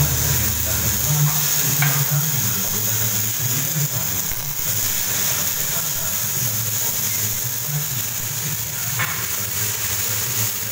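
MIG welding arc on steel, a steady, even hiss held without a break as a bead is laid.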